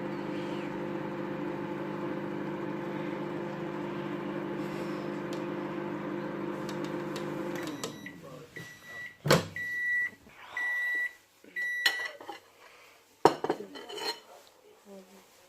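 Microwave oven running with a steady hum that winds down about eight seconds in, followed by a string of about five short, high beeps and two sharp clunks.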